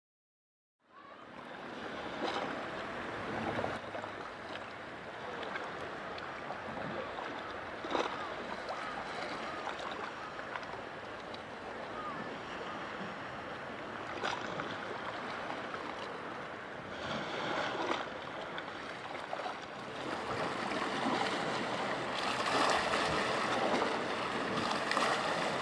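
Seaside ambience of small waves washing and wind noise, starting about a second in, with a few brief sharp clicks.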